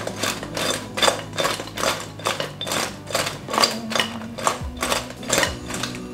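Sauced chicken wings being tossed in a glass mixing bowl, knocking and slapping against the glass in repeated shakes, over background music.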